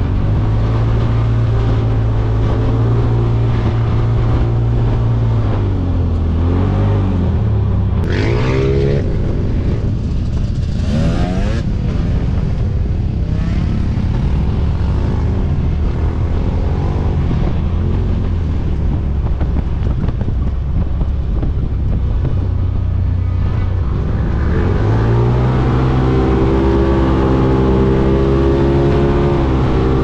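Side-by-side UTV engine running hard while driving over sand dunes, its note dipping about six seconds in and climbing again near the end, over a steady rush of wind noise.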